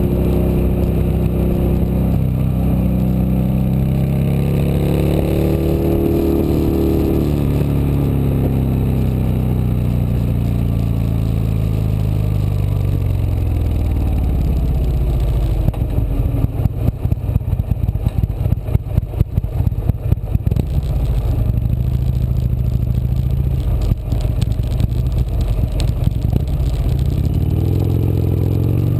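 Harley-Davidson XR1200's V-twin engine running through a new muffler. It revs up, then the pitch falls slowly back. From about halfway it settles into an uneven, loping low-rpm beat, and it revs again briefly near the end.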